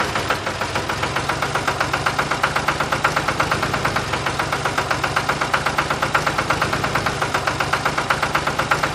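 Tractor engine running steadily with a rapid, even chugging beat, which cuts off suddenly just after the end.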